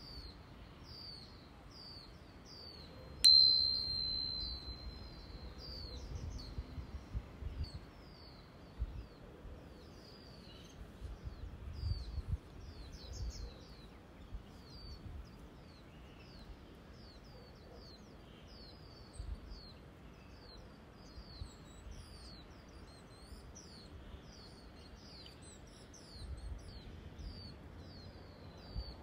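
A tuning fork struck once about three seconds in, ringing a high steady tone that fades over a couple of seconds. Behind it, a bird repeats short high chirps, about two a second.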